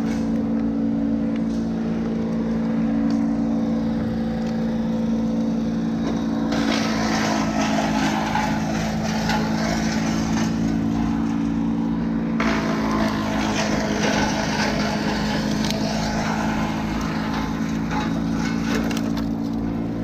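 A small engine running steadily, with a louder, rough, noisy stretch from about six to twelve seconds in.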